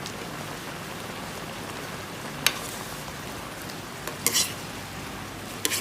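A pot of noodle-soup broth bubbling steadily on the boil, with a utensil clinking against the pot three times: once sharply about halfway through, then twice more near the end.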